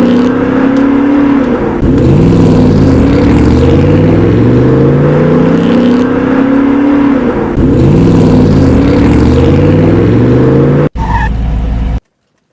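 Race car engine sound effect: the engine climbs in pitch over and over as it accelerates up through the gears, with a car passing by twice. It cuts off abruptly about 11 seconds in, followed by a brief different sound and a moment of silence.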